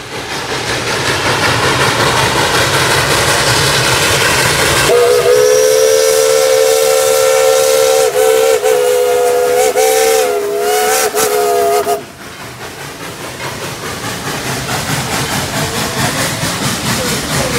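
Diesel locomotive running close by, then its multi-chime air horn sounding a chord for about seven seconds, starting about five seconds in, with a few brief breaks near the end. After the horn cuts off the locomotive and train keep running past.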